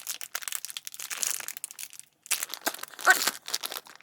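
Crinkling and tearing of a mystery toy pack's wrapper being pulled and worked open by hand, in irregular crackles with a short pause about halfway. A brief vocal sound about three seconds in.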